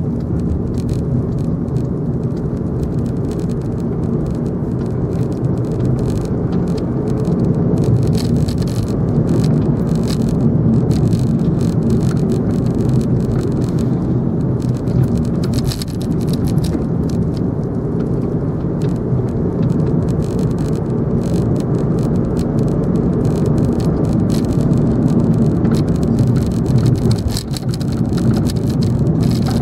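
Car cabin noise while driving: a steady low drone of engine and tyres on the road, with frequent light ticks and rattles.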